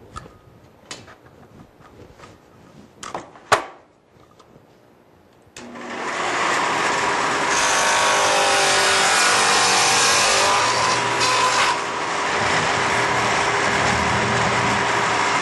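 A few light knocks and clicks of wood being handled. About five and a half seconds in, a Shopsmith Mark V table saw with a dado blade starts up and runs steadily, louder for a few seconds while the blade cuts a groove in the board.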